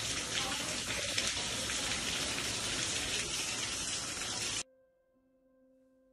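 Water leaking through the ceiling, pouring in streams from the light fixtures and splashing onto the hallway floor as a steady rushing hiss. It cuts off suddenly about four and a half seconds in, leaving faint held musical tones.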